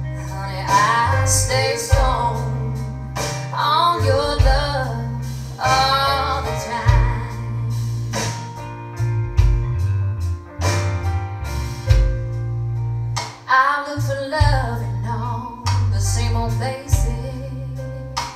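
A song with a female lead voice, guitar, a deep bass line and sharp beats, played back through hi-fi loudspeakers with an active subwoofer during a listening test.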